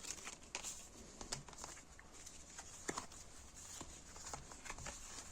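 Tarot cards being handled and turned over on a table: faint, scattered soft taps and flicks of card stock at irregular intervals.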